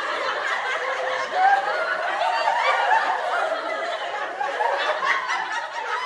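Several voices giggling and laughing together, overlapping throughout.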